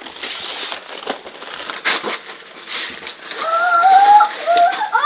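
Wrapping paper crinkling and tearing as presents are unwrapped by hand, in short rustling crackles. About three seconds in, a young child's voice comes in over it, and it is louder than the paper.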